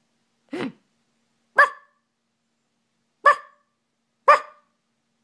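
Four short, sharp barks with pauses between them; the first is lower and a little longer than the other three.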